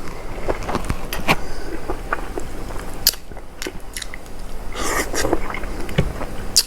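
A person chewing and eating, with irregular wet mouth clicks and crunches and a brief louder slurp-like rush about five seconds in.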